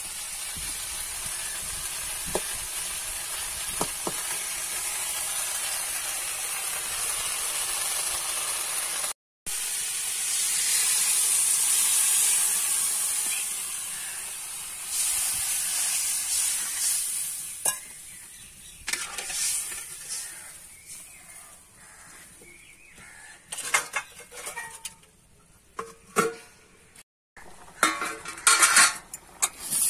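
Potatoes frying in a karahi over a wood fire, a steady sizzle that swells for a few seconds and then dies away about halfway through. A metal spatula then stirs, scraping and clinking against the pan in short, irregular strokes.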